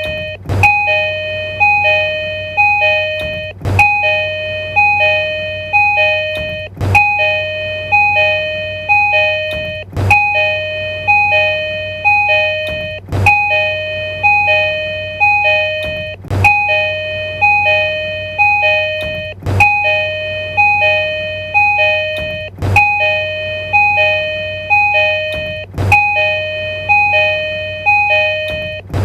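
Tokyu train door chime, as fitted to the 2020 series: a two-note electronic chime alternating quickly, the sequence repeating about every three seconds with a sharp click at the start of each repeat.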